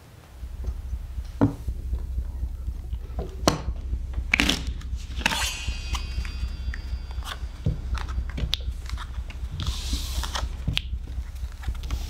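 Poker chips clicking and playing cards being handled on a felt table: scattered small clicks and a few brief rustles over a steady low hum.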